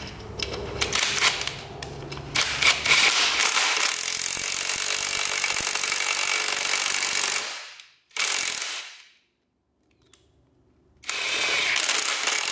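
A ratchet wrench clicking on a bolt, then a power tool running steadily for several seconds. It stops for about two seconds near the end, then starts again.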